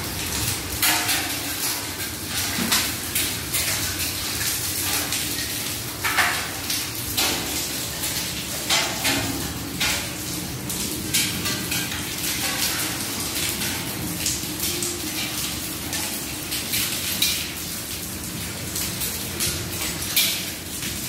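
Hail and rain falling on a wet tiled courtyard: a steady hiss of rain with dense, irregular sharp clicks and clatters of hailstones striking the hard floor.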